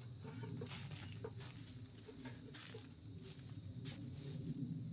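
Steady high-pitched insect chorus, crickets or similar, droning without a break, with a few faint clicks and taps of handling over it.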